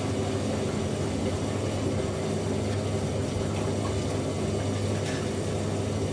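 Hoover Ecologic A8582 washer dryer on its final intermediate spin: a steady motor hum with water sounds, mixed with a second washing machine running.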